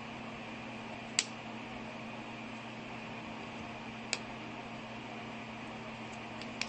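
Steady hiss and hum of a small room's background noise, broken by two short sharp clicks, about a second in and about four seconds in.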